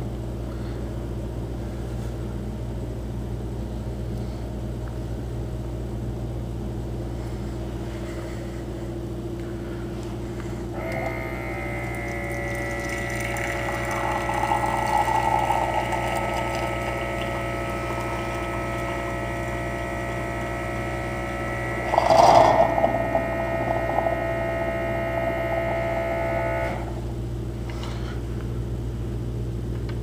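Keurig Mini Plus single-cup coffee maker running a flush cycle with no pod: a steady hum, then about eleven seconds in hot water starts running through into the empty cup with a steady whine for about fifteen seconds. There is a brief louder burst a little past twenty seconds, and then the flow stops.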